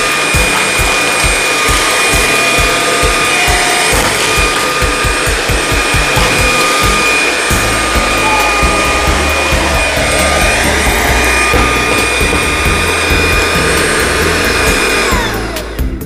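Xiaomi Dreame V11 cordless stick vacuum running on its second power level: a steady high motor whine over the rush of suction air. Near the end the motor winds down, its whine falling in pitch.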